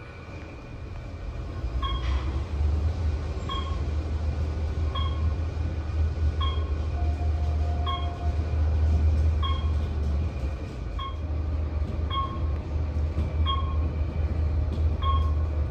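Hotel elevator car travelling between floors: a steady low rumble from the moving car, with a short electronic chime about every one and a half seconds as it passes each floor.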